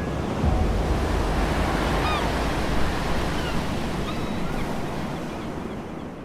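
Ocean surf washing onto a beach: a steady rushing wash, with a few short high chirps over it, fading out near the end.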